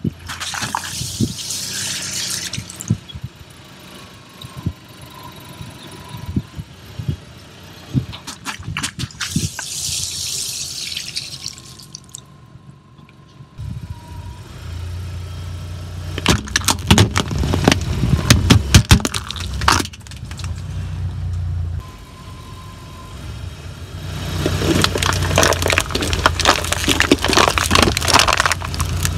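A car tyre rolling over and crushing a series of objects: water-filled balloons bursting with splashes of water, then aluminium foil trays crumpling and crackling. The car's engine hums low underneath for the second half.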